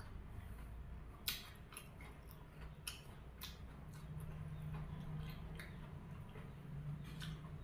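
Fresh green vegetable stems snapped and torn apart by hand, giving a series of crisp, irregularly spaced snaps over a low steady hum.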